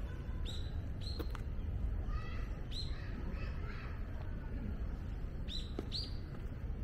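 Birds calling: short, sharp high chirps, two about half a second and a second in and two more near the end, with a run of lower, harsher calls through the middle. A steady low rumble of distant city noise runs underneath.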